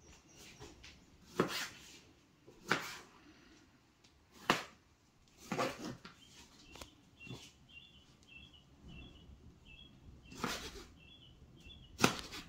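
Kitchen knife cutting tomatoes and red onion on a plastic cutting board: a handful of separate cuts a second or more apart, the loudest near the end. From about halfway, a faint high chirp repeats steadily about twice a second.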